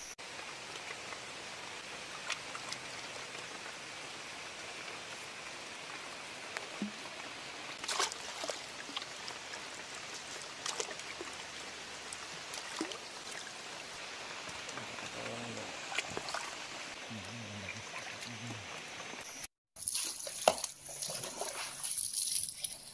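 Hands swishing and splashing rhizomes in river water, over a steady watery hiss with scattered splashes. Near the end, water from a hose splashes loudly over a carcass on a hard floor.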